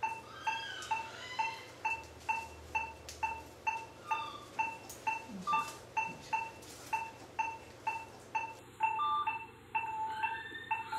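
Operating-room patient monitor beeping steadily at about two beeps a second, each the same short electronic tone, the pulse oximeter tone that follows the anaesthetised dog's heartbeat.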